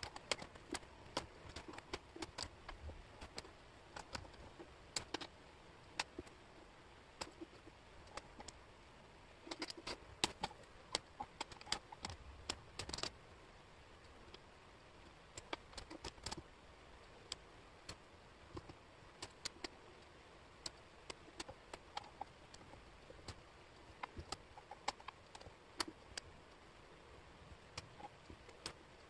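Wooden jigsaw pieces clicking and tapping against each other and the tabletop as they are picked up and fitted into place: many light, irregular clicks, busiest a third of the way in.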